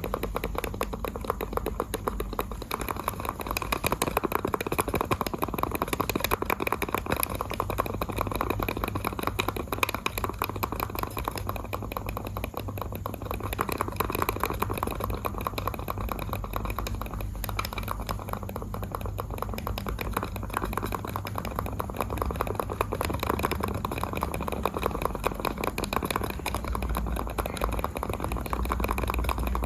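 Computer mouse buttons clicked rapidly and continuously, many clicks a second, over a steady low hum.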